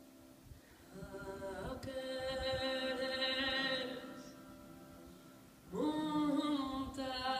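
A woman singing long held notes to a button accordion. The first note starts about a second in, steps up and fades near the four-second mark; the second slides up into its note near the end.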